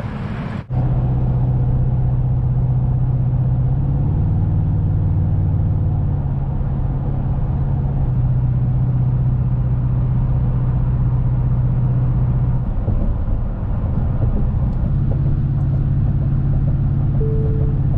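Pickup truck driving at highway speed, heard from inside the cab: a steady low engine drone over road noise, its pitch shifting briefly about four seconds in and again around thirteen seconds.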